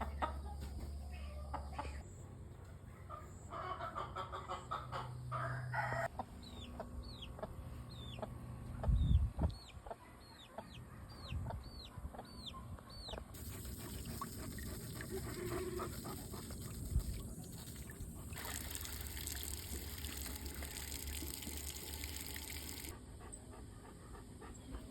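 Chickens clucking and a rooster crowing, with a run of quick high chirps in the middle. A loud thump comes about nine seconds in.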